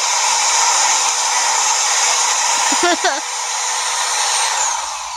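Steady rush of air from a small electric blower or fan standing on the floor, blowing hard enough to lift a baby's bib, with a thin steady whine under the noise. A baby gives a brief vocal sound about three seconds in.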